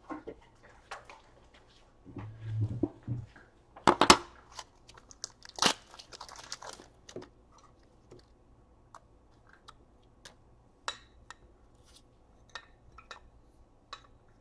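Trading cards and plastic card holders being handled at close range: scattered light clicks and crinkling plastic. There is a louder rustle about two seconds in and sharp crinkles around four and six seconds.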